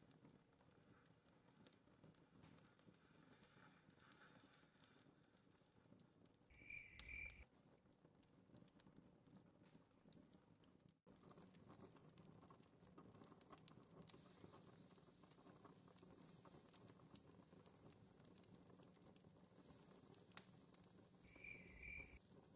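Faint night-forest game ambience: crickets chirping in quick trains of about seven chirps, heard twice, with a short double-note call twice. The same pattern comes round again about fifteen seconds later as the ambience loops.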